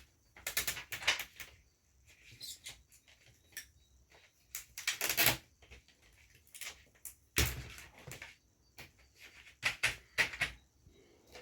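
Hands working on an LED TV's backlight panel: scattered clicks, knocks and a few short scraping, rustling noises as the parts are handled.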